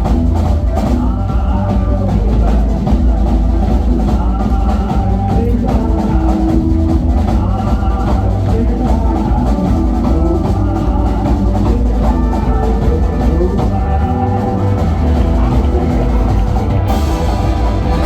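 Live country band playing loudly: drum kit and bass keeping a steady beat under guitar and other pitched instrument lines.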